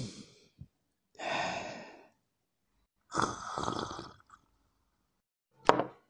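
Human-made sound effects for a drinking figure. A breathy sigh comes first, then about a second of drinking sounds, and near the end a sharp knock as the glass is set down.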